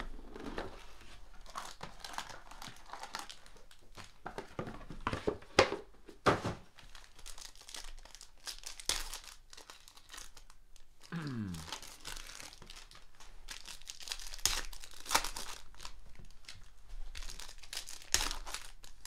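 Trading-card pack wrappers crinkling and tearing as packs are opened by hand, with cards rustling and sliding between fingers. Irregular rustles with a few sharper crackles.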